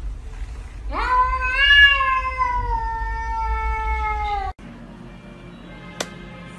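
A tabby cat gives one long meow of about three and a half seconds, rising at the start and then slowly sinking in pitch, cut off abruptly. A single sharp click follows a moment later.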